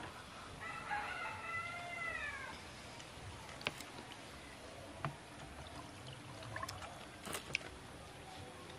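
Low-level background with a short wavering animal call about a second in, then a few scattered light clicks.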